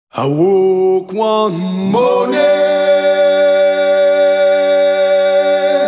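A man singing unaccompanied: a few short notes that slide upward, then from about two seconds in one long held note.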